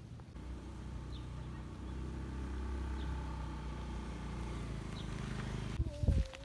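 A vehicle engine running with a steady low hum that grows a little louder. It cuts off near the end, and a few loud thumps follow.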